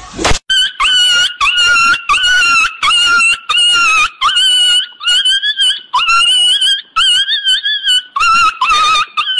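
Loud, rapid, high-pitched yelping like a small dog's, a steady run of short even calls at nearly two a second.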